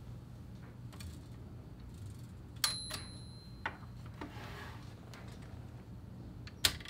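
Smith Corona Sterling manual typewriter being handled and shifted: scattered clicks and knocks from its metal parts, with a short metallic ring nearly three seconds in and the sharpest knock near the end.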